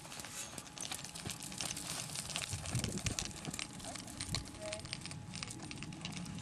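A horse cantering on the lunge in a dirt arena: a few faint, dull hoofbeats on the soft footing under a steady crackling noise.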